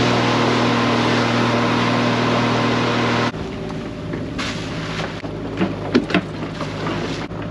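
Small boat's outboard motor running under way, steady, with rushing water noise; about three seconds in it cuts to a quieter low engine hum with a few sharp knocks and clatter as pots and gear are handled in the boat.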